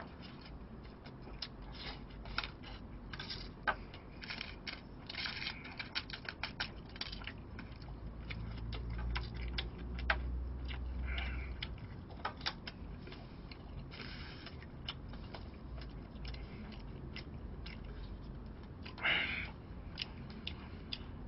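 Eating sounds: many light, scattered clicks and scrapes of a plastic spoon against a plastic takeout tray, with chewing. A brief louder noise comes near the end.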